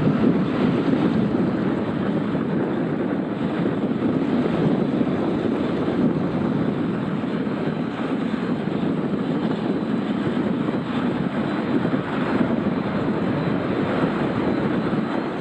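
Steady jet noise from a Boeing 787-8's Rolls-Royce Trent 1000 turbofans, a deep even rushing roar, with some wind on the microphone.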